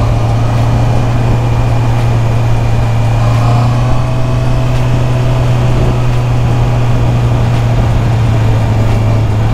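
Motor scooter running steadily while being ridden uphill, a constant low drone under a rush of noise.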